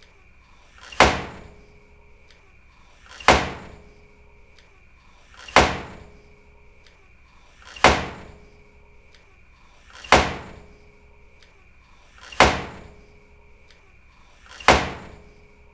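A door slammed shut hard, seven times at even intervals about two and a quarter seconds apart. Each slam is a sharp bang that dies away within half a second.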